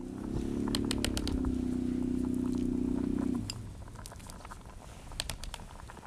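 Light clicks and scrapes of a spoon working minced chicken in a bowl, over a steady low hum that cuts off abruptly about three and a half seconds in.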